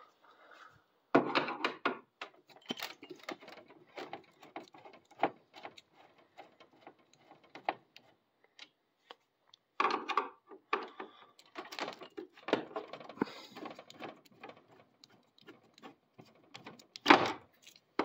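Phillips screwdriver backing out the two screws that hold the lower clip on the plastic casing of a Senville AURA mini-split indoor head: a run of small clicks, ticks and scrapes. A few louder clatters of handling come about a second in, around ten seconds and near the end.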